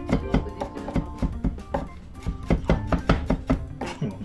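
Chef's knife mincing crushed garlic on a wooden cutting board: quick, uneven knife strikes against the board, over background music.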